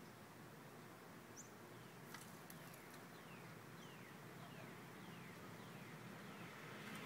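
Faint outdoor ambience in which a bird gives a series of short falling calls, about two a second, for a few seconds.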